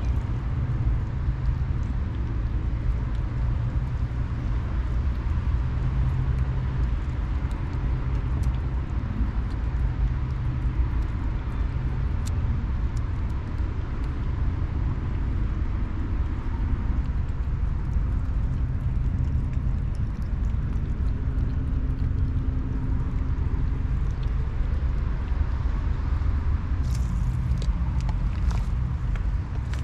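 Steady low rumble of a running engine, its pitch shifting a little now and then, with a few faint clicks near the end.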